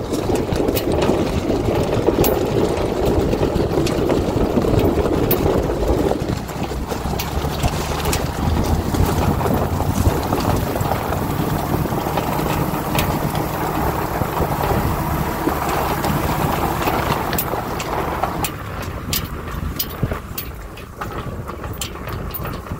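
Chevy Silverado 3500 dump truck driving slowly over a gravel road, heard from inside the cab: the engine running, with scattered clicks and crunches of gravel under the tires. The sound drops off about three quarters of the way through as the truck eases to a stop.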